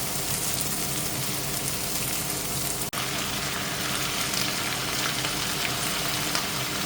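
Raw chicken pieces sizzling steadily as they fry in a pan with onion, garlic, ginger and tomato, with a momentary break about three seconds in.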